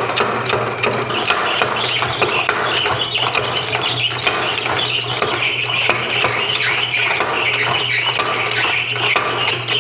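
30-pound Kerrihard power hammer running on its electric motor, a quick run of blows over a steady motor hum, with a high squeal that grows from about a second in. The squeaking comes from the belt drive or somewhere else; the owner can't yet place it.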